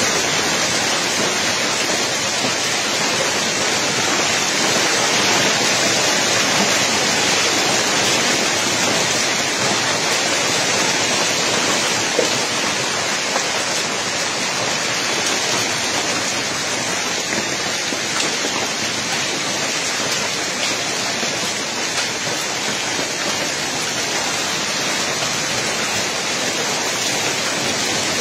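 Hailstorm: hailstones and rain pelting the paved street and pavement, a dense steady hiss.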